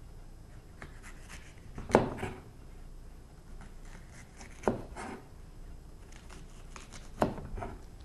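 Chef's knife slicing down through green bell pepper walls and knocking on the cutting board: three clear knocks about two and a half seconds apart, the first the loudest, with fainter cuts between.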